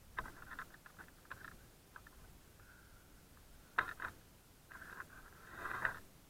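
Faint rope-handling noises: prusik hitches and leather work gloves sliding and rubbing on a climbing rope, in short bursts of rustling and scraping, with a sharp click a little under four seconds in and a longer scrape near the end.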